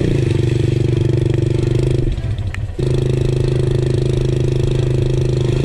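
Motorcycle engine running at steady revs while riding through floodwater; the engine note drops away briefly about two seconds in, then picks up again at the same pitch.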